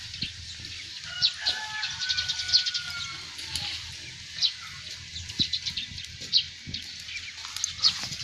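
Small birds chirping in many short, high calls at an irregular pace, with a few light knocks.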